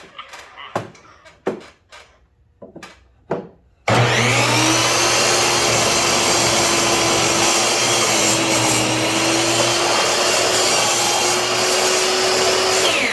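A few light knocks and handling sounds, then about four seconds in a power tool's electric motor switches on with a short rising whine and runs loud and steady. It winds down with a falling whine at the end.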